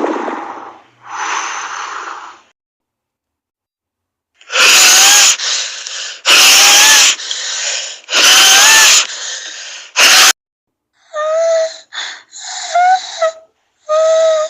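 Lung sounds: a run of noisy breaths, one after another. From about four seconds in, each breath carries a high musical whistling pitch, a wheeze, and the middle breaths are very loud.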